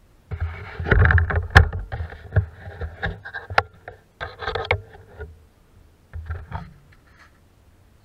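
Handling noise from a small camera on an ice-fishing trap being moved over the ice hole: irregular rubbing and scraping with a few sharp knocks, loudest in the first half and dying away about seven seconds in.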